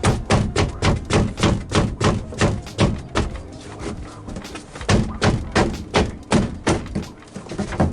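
Rapid repeated thumps and knocks, about four or five a second, as a tight-fitting wooden cabinet is banged up into place in a van's high roof. They ease off briefly in the middle, then start again.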